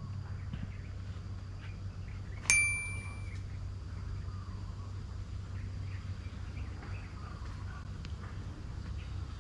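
A single sharp metallic ding about two and a half seconds in that rings on for about a second, over a steady low hum and faint scattered chirps.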